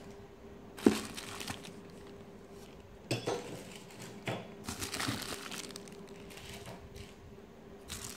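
Plastic zip bags and bubble wrap crinkling and rustling as a hand handles bagged robot-kit parts in a cardboard box, with a sharp knock about a second in and a few small clinks of bagged parts.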